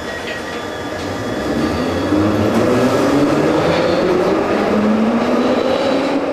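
Glasgow Subway train pulling out of an underground station: its motors whine and rise slowly in pitch as it accelerates, over the rumble of the wheels on the rails. The sound grows louder about a second and a half in.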